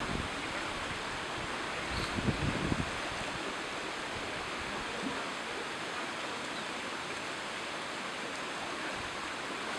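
Small sea waves washing against a rocky shore, a steady wash of water, with a few low wind buffets on the microphone about two seconds in.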